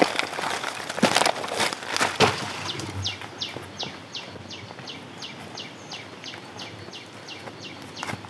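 Footsteps crunching on dry leaf litter, the loudest sounds, in the first two seconds or so. From about three seconds in, a bird calls a fast, even run of short falling high notes, about three or four a second.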